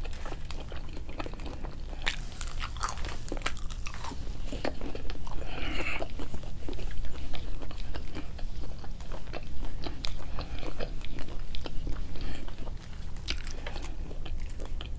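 Close-miked biting and chewing of McDonald's fast food, with many short crisp crunches and mouth clicks.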